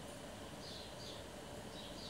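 Faint room tone with three short, high chirps from a small bird, about two-thirds of a second in, again just after a second, and near the end.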